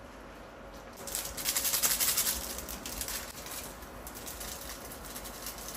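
Noodles and vegetables frying in a pan, sizzling and crackling; the sizzle swells about a second in, then settles to a lower steady crackle.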